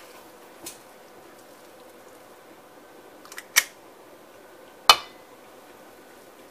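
Metal portion scoop clinking against a stainless steel mixing bowl: a faint tick under a second in, a few small clicks and a sharp clink about three and a half seconds in, and a louder clank with a brief ring near five seconds.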